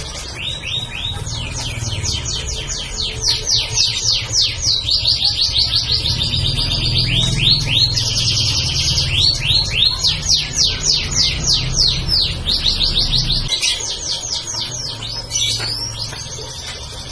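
Domestic canary singing a long, unbroken song of rapidly repeated trilled notes, one phrase after another at changing speed and pitch. A low rumble sits underneath and stops near the end.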